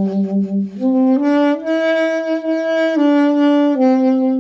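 Alto saxophone played by a beginner: a slow run of held notes stepping up in pitch, then back down again.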